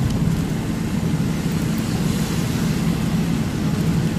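Truck engine running steadily while driving, heard from inside the cab as a constant low drone and hum.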